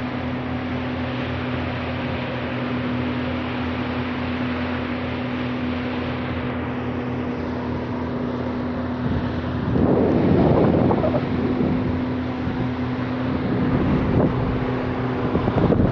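Twin outboard motors running steadily at cruising speed, a constant engine hum under the rush of water and air. Wind buffets the microphone in louder gusts about ten seconds in and again near the end.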